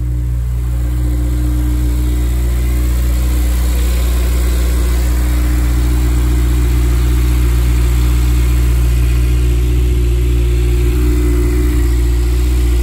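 A 2008 Honda Civic Si's 2.0-litre DOHC i-VTEC four-cylinder, fitted with 2008 Acura TSX camshafts and a catless header, idling steadily shortly after a cold start.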